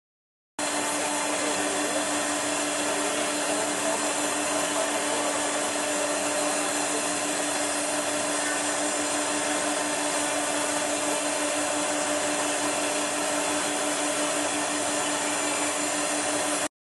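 High-speed milling spindle running steadily with a constant whine and hiss as the robot arm feeds depron foam onto the cutter. It starts suddenly about half a second in and cuts off just before the end.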